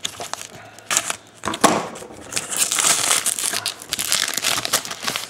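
Paper wrappers of Topps Allen & Ginter baseball card packs being handled and torn open, crinkling and crackling, with a few sharp crackles early on and a long, dense run of crinkling through the second half.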